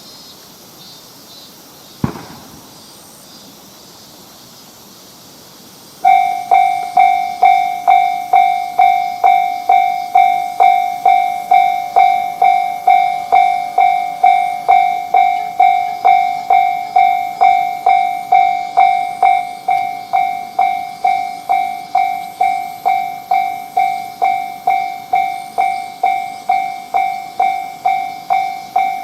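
Japanese railroad crossing warning bell starts about six seconds in and rings steadily at a little under two strikes a second. Each strike is a clear ringing tone that dies away, the signal that a train is approaching. A single sharp click sounds about two seconds in.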